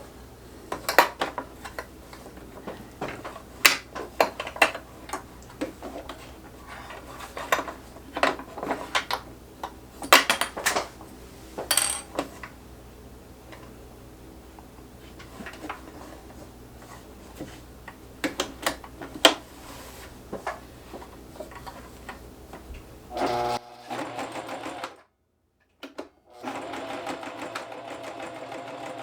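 Sewing machine sewing a zigzag stitch through the patch on stretchy dress fabric. Irregular sharp clicks sound over a steady hum for most of it; after a brief break near the end the machine runs steadily.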